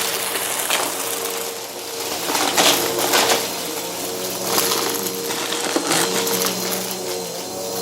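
Bissell vacuum cleaner's spinning brushroll crunching debris it is picking up, with irregular sharp crackles over the machine's steady hum.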